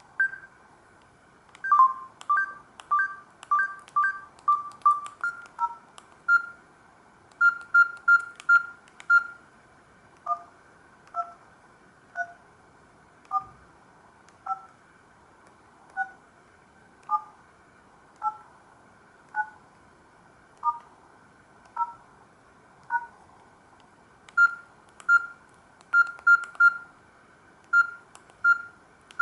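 Samsung GT-C3752 mobile phone playing one of its ringtones through its small speaker: a melody of short, clean beep-like notes. It starts with quick runs, slows to single notes about a second apart, then quickens again near the end.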